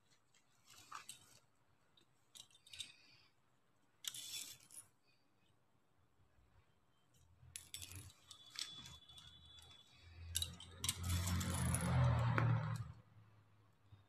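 Hands handling plastic beads and artificial leaves: small clicks of beads against each other and crinkly rustling of the leaves. There is a louder, longer stretch of rustling and handling noise near the end.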